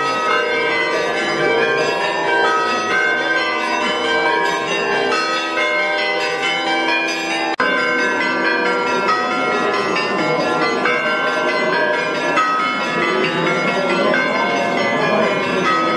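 Church bells ringing continuously, many overlapping tones sounding together; the sound cuts out for an instant a little before halfway.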